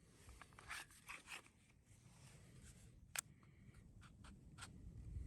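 Faint handling noise: rustling and scraping with a few small clicks, and a sharper click about three seconds in.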